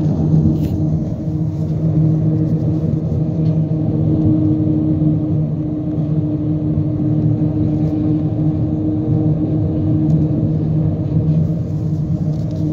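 Car tyres rolling over an open steel grid bridge deck, heard from inside the car: a steady low hum with higher overtones over a rumble.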